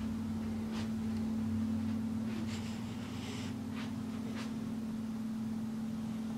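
A steady low hum, with a few faint, brief rustling noises in the first half.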